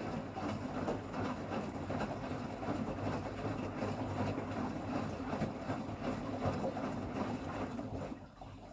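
Beko bPRO500 washing machine on its calibration first cycle, the drum turning through water: a steady churning and sloshing over a low motor rumble. It winds down and stops about eight seconds in.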